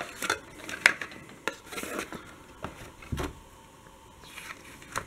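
Cardboard box and paper packaging handled by hand as the box is opened: scattered clicks, taps and short rustles of card and paper, with a dull knock about three seconds in.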